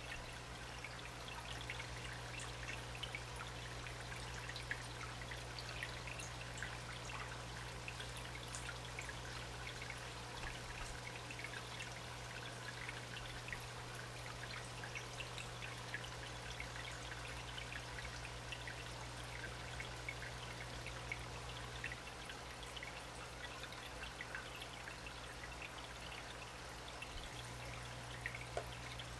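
Aquarium water trickling and fizzing steadily with fine crackles of tiny bubbles, over a low steady hum.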